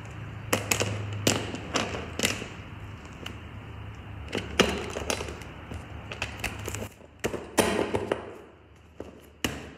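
Scattered knocks and taps of metal parts being handled and fitted together, as a seat is test-fitted on a freshly welded seat-frame bracket, over a low steady hum that stops about seven seconds in.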